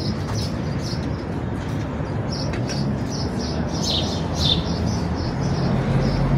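Small birds chirping repeatedly in short high calls over a steady low engine hum.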